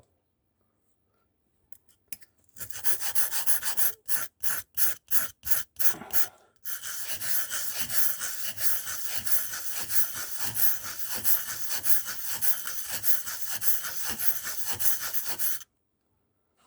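Scissors blade being honed on an oiled sharpening stone in figure-8 strokes: a rasping rub that starts about two and a half seconds in as a few separate short strokes, then runs on as one continuous rub and stops suddenly about a second before the end.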